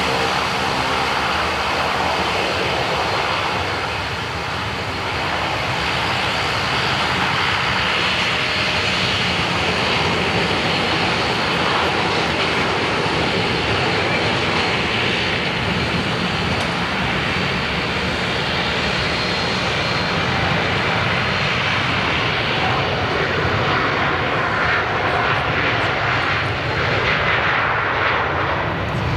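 Embraer 195 airliner's twin General Electric CF34-10E turbofans running at high thrust during the takeoff roll, a loud, steady jet noise as the aircraft accelerates down the runway.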